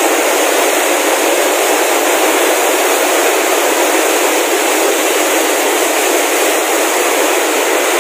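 Many spinning machines in a factory hall running together: a loud, steady, even mechanical din with no distinct beat.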